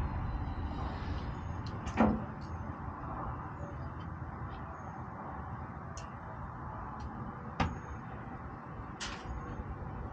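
Scattered sharp clicks and knocks from wire and fasteners being worked against the truck cap's metal ceiling, the loudest about two seconds in and a few more near the end, over a steady low rumble.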